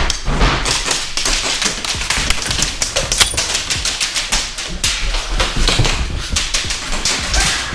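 Airsoft guns firing rapidly, a dense, irregular run of sharp clicks and snaps throughout.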